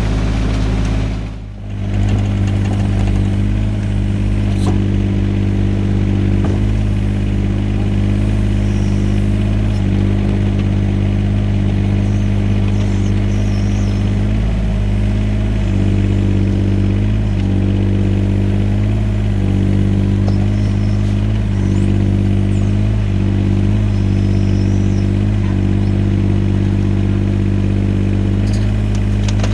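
Yanmar ViO17 mini excavator's three-cylinder diesel engine running steadily at working speed, its pitch dipping slightly now and then as the hydraulics take load.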